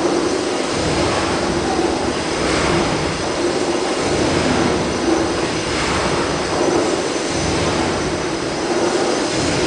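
Gimson Woolf compound steam beam engine running steadily: a continuous mechanical hiss with a low rumble that swells and fades.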